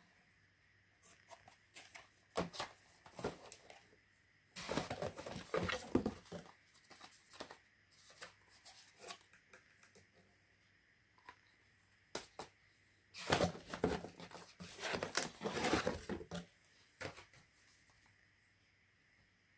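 Handling noise: scattered small clicks and taps, with two longer spells of crackling rustle, one about five seconds in and another about thirteen seconds in lasting around three seconds.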